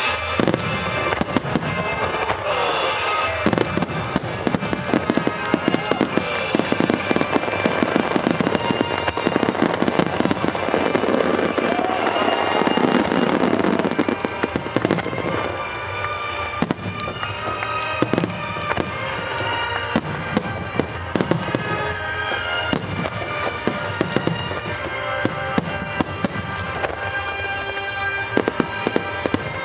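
Fireworks display: a rapid, continuous stream of bangs and crackling from shells bursting, thickest about halfway through, with music playing over it.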